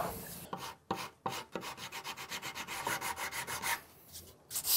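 Sandpaper rubbed by hand back and forth over a cherry table leg, smoothing flush-trimmed wooden pegs: quick rhythmic strokes, a brief pause, then the strokes start again louder near the end.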